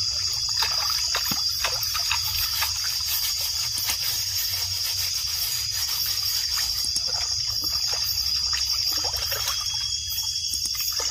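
Shallow stream water trickling and splashing as hands rinse and clean freshly caught fish in it, with small irregular splashes, over a steady high-pitched drone.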